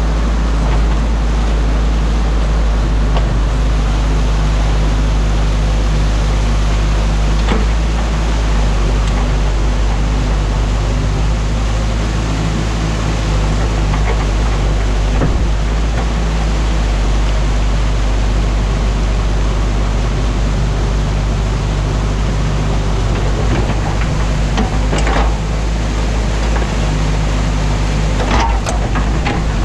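Heavy rushing of water released through the opened beaver dam, a steady torrent, over the constant hum of an excavator's diesel engine. A few brief knocks come through, mostly near the end.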